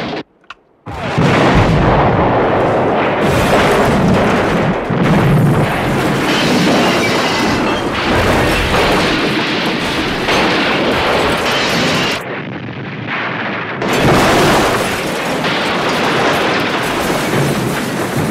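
Film sound effect of an apartment building being blown up: a sharp blast, then a long, continuous rumble of explosion and collapsing debris. About twelve seconds in it drops back briefly before surging again.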